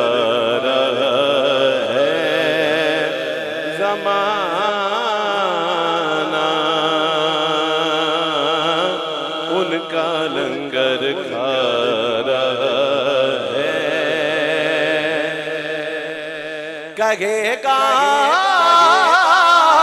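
A man chanting a Punjabi naat through a PA system in long, drawn-out wavering notes over a steady low drone; about 17 seconds in the sound turns brighter and louder as a new sung line begins.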